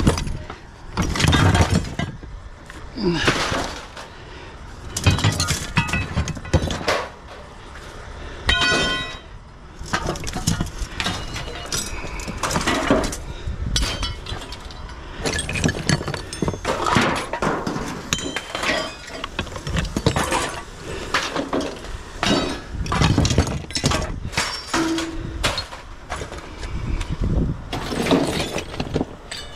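Pieces of scrap metal being tossed one by one onto a pile, giving irregular clanks and crashes every second or so. Some pieces ring on after they land.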